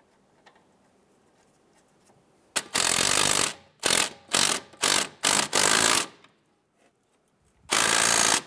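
Cordless impact wrench running down and snugging the sway bar end link nut on the strut, in bursts: one run of about a second, four short blips, and another short run near the end.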